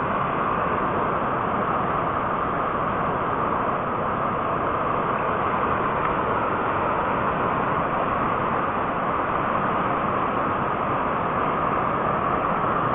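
Floodwater rushing steadily across a submerged road, a continuous even rush of water without breaks.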